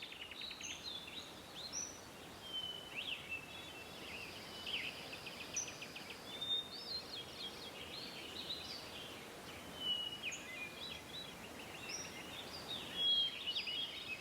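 A chorus of birds calling: many short high chirps, whistles and quick trills overlapping one another, over a steady background hiss.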